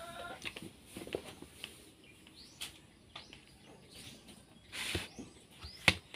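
Spoon and fork clicking and scraping against a plate while eating, with a sharp click near the end. Short bird chirps are heard in the background.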